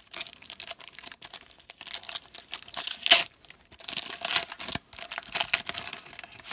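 Trading-card packs being torn open by hand, their wrappers crinkling and ripping in irregular crackles, loudest about three seconds in.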